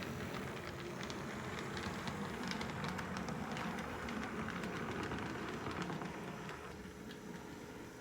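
HO scale model train running along the track: a steady rumble of motor and wheels with scattered light clicks, growing quieter near the end.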